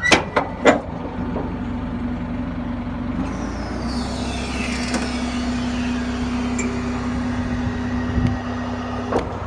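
Tractor engine running with its hydraulics working to raise the baler's rear gate: a steady hum, with a few clicks in the first second and a faint high tone sliding slowly downward partway through. The hum drops away just at the end.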